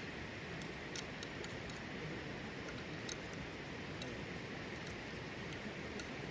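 Wood campfire crackling: irregular sharp pops and ticks over a steady hiss.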